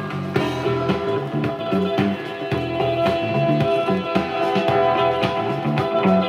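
A record playing through the GE Trimline 500 record player's speakers: a song with a steady beat.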